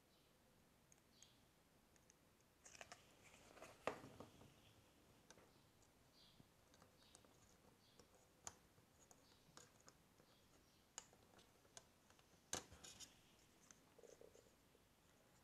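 Faint, scattered clicks and light taps of small plastic model-kit parts being handled and pressed into place, with a louder click about four seconds in and another near the end.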